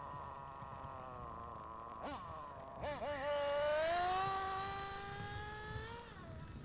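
Glow engine of a Graupner Impuls 3000 1/8-scale off-road buggy, an OS Max, running at high revs with a buzzing whine. The pitch sags, dips sharply twice around two and three seconds in as the throttle is blipped, then climbs to its loudest about four seconds in before falling off near the end.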